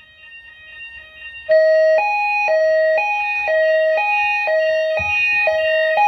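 Ceiling-mounted voice evacuation speaker of a fire alarm system sounding a two-tone alarm, a lower and a higher tone alternating every half second. It starts about a second and a half in, after a short lull.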